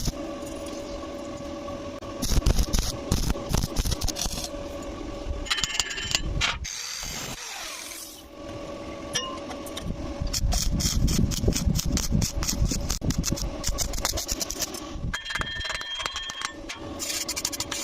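Metalworking on steel pipe: tool noise made of dense runs of sharp clicks and scraping over a steady hum, with a brief lull about seven seconds in.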